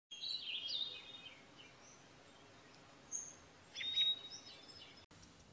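Birds chirping: short, high chirps and whistles over a faint background hiss, a cluster near the start and more about three and four seconds in.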